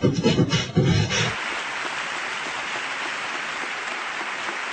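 A beatbox-style chopped vocal remix cuts off after about a second and gives way to steady applause from a crowd.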